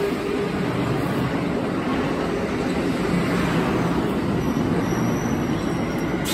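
Amtrak passenger coaches rolling past at a station platform as the train arrives: a steady noise of steel wheels running on the rails.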